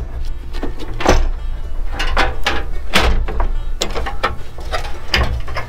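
Metal parts of a Coleman Triton camp stove knocking and clanking as the stove body and its burner parts are lifted and handled: a busy, irregular string of sharp knocks.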